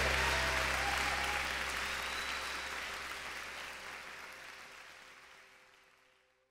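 Crowd applauding, fading out steadily to silence.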